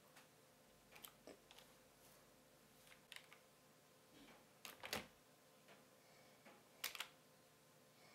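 Slow, irregular keystrokes on a computer keyboard: single clicks and short clusters of clicks a second or more apart, over a faint steady hum.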